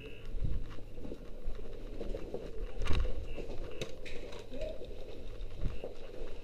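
Footsteps and the knocks and rustle of carried gear on a hard floor, with a heavier thump about three seconds in as the loudest sound.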